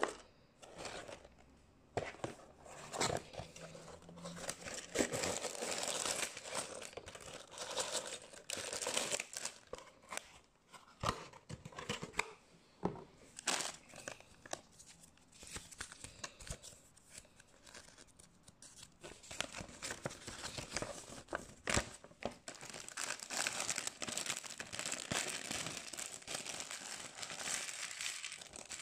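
Clear plastic bags of small plastic building bricks crinkling and being torn open, with frequent sharp clicks and rattles as the loose bricks are tipped out and clatter together.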